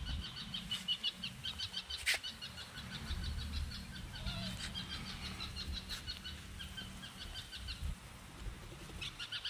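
Outdoor ambience with a bird chirping in fast, even runs of high notes, each run lasting a second or two, over a low rumble. A single sharp click sounds about two seconds in.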